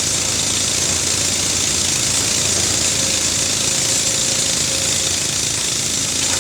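Case excavator's diesel engine running steadily, with a fast, even pulsing beat.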